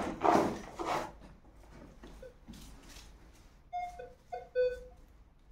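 Minelab Equinox 700 metal detector giving a few short target beeps at two or three different pitches about four seconds in, as the coil passes over metal. A brief noisy burst with no clear pitch comes at the very start.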